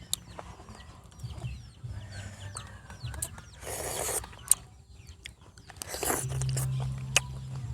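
Birds calling, like farmyard fowl, with two short rustling noise bursts partway through over a steady low hum.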